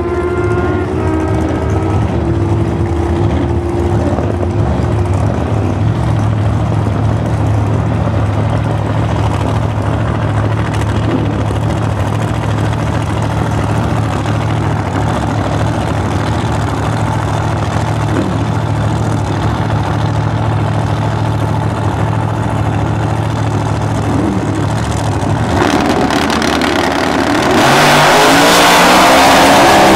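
Two drag-racing Camaros' V8 engines, one of them supercharged, idling steadily at the starting line. About 27 seconds in, both launch at full throttle, much louder, the engine pitch climbing.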